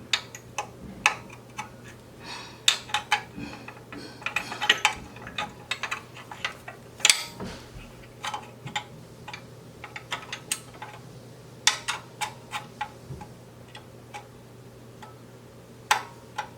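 Irregular metallic clicks and clinks of a hand tool working bolts tight, some coming in quick runs, over a steady low hum.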